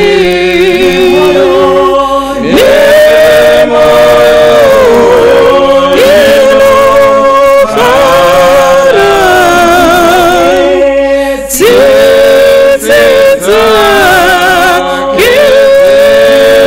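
A small group of men and women singing a slow Shona hymn in harmony, holding long notes that glide from one pitch to the next.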